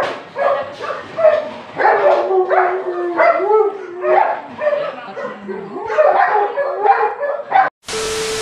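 A dog whining and yipping over and over in rising and falling calls. Just before the end it cuts to a burst of TV-static hiss with a steady tone for about a second.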